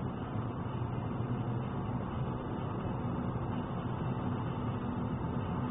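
Steady in-cabin noise of a car driving at highway speed: a low engine hum under an even rumble of tyres on the road.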